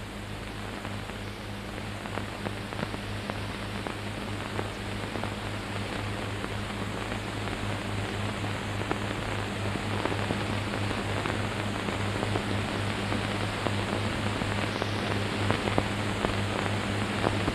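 Steady hiss with many faint crackles and a low steady hum: the noise floor of an old optical film soundtrack.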